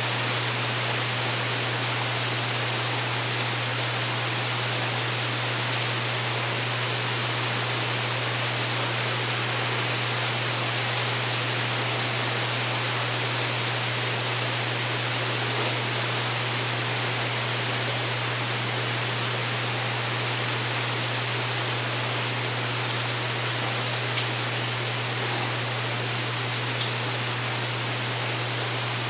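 Steady rain pattering on a porch roof, an even hiss with a few faint drop ticks, over a steady low rumble.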